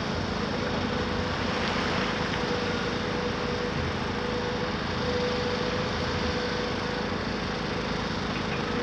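Caterpillar 374F excavator's diesel engine running steadily under load, with a steady whine over the engine noise.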